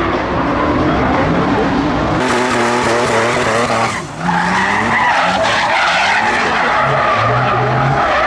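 Drift cars sliding with tyres screeching and engines revving hard, the engine pitch rising and falling as the throttle is worked. The sound changes abruptly about two seconds in and again about four seconds in.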